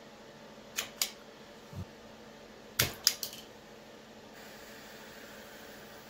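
Sharp snapping clicks of a hand-held wire stripper gripping and stripping wire: two about a second in, a soft thump, then three in quick succession near three seconds. A faint steady hiss then starts, a small handheld torch lit to shrink and melt a solder-seal connector.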